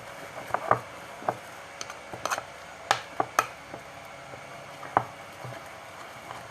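Fluffy slime of glue, shaving foam and spray starch being stirred in a bowl: irregular sharp taps and wet squelches, a dozen or so spread unevenly through.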